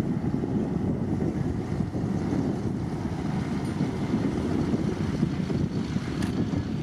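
Steady low rumble of heavy earthmoving machinery, diesel bulldozer and dump truck engines, running under load, with a faint click about six seconds in.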